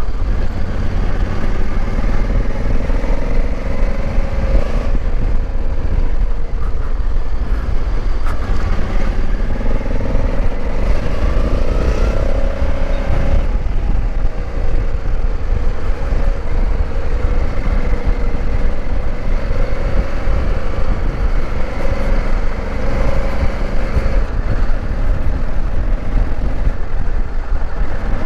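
Motorcycle being ridden on the road: the engine runs with its pitch rising and falling as the throttle changes, over a heavy, continuous rumble of wind on the microphone.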